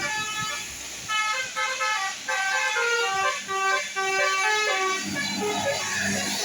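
Bus 'telolet' musical air horn playing a quick tune of short stepped notes, several tones sounding together. A rougher, noisier rumble rises underneath about five seconds in.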